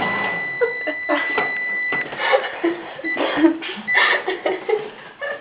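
Microwave oven's running hum cuts off as its 10-second cycle ends, followed by one long, steady end-of-cycle beep of about two seconds. A few short beeps of the same pitch follow, likely from the keypad.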